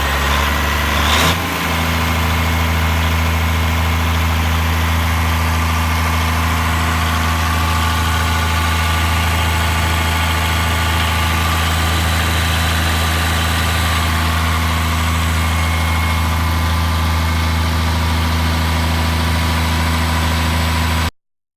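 Diesel engine of a 1994 Maxigrind 425 horizontal grinder idling steadily, after a brief louder, rougher stretch in the first second or so. It cuts off suddenly near the end.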